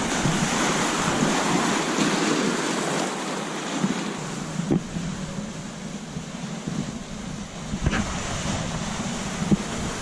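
Waves washing on a beach with wind buffeting the microphone, broken by a few short thumps of wind on the mic in the second half.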